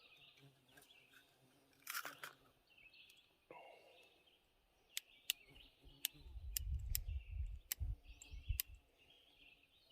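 Sharp clicks and handling of a cap-and-ball revolver as its cylinder is turned to bring an empty chamber under the hammer, with muffled handling thumps partway through. Birds chirp faintly behind.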